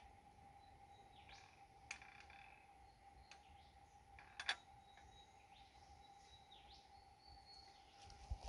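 Near silence with faint bird chirps and a faint steady tone, broken by two sharp clicks, the louder one about four and a half seconds in, from the metal height brackets of a chainsaw mill being adjusted.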